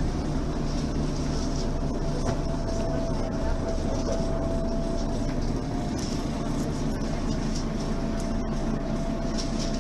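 Mercedes-Benz Citaro Facelift city bus engine running steadily, with a steady whine held through most of the stretch.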